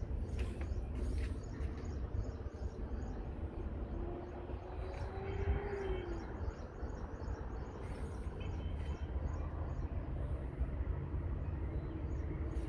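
Outdoor ambience: a steady low rumble with small birds chirping repeatedly throughout, and a faint rising tone around the middle.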